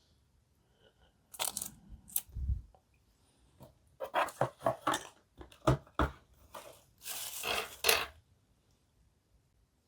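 Packaging being handled: rustling and crinkling with several sharp clicks, and a longer rustle about seven seconds in.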